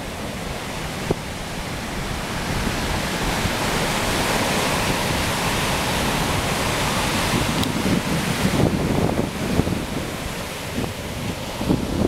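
Ocean surf breaking and washing up a sandy beach: a steady rushing hiss that swells in the middle. In the second half it turns into gusty rumbles as wind buffets the microphone.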